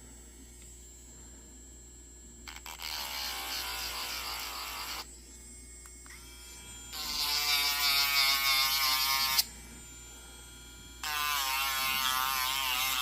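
A small high-speed electric power tool, run in three bursts of a few seconds each, roughing up the surface of an acrylic stick so adhesive will grip; its whine wavers in pitch as it bites into the plastic, hot enough to burn the acrylic.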